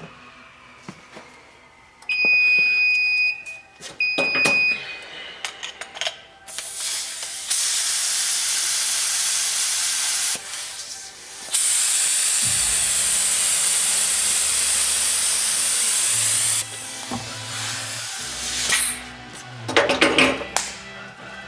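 Spray hissing in two long bursts of several seconds each, a step in hydro-dipping parts. Two short high beeps sound early on.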